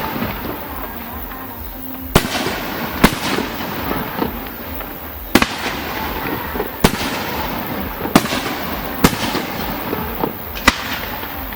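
Aerial firework shells bursting: about seven loud, sharp bangs at irregular intervals of one to two seconds, over a steady crackle and rumble of other bursts.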